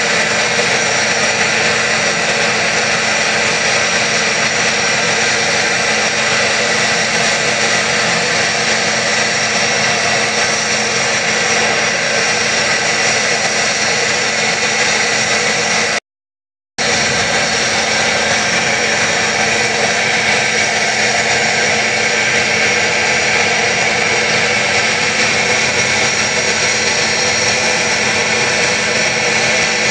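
Steady loud running noise of aluminothermic rail-welding equipment at work, holding even without a break in pitch or level. It cuts out completely for under a second about halfway through.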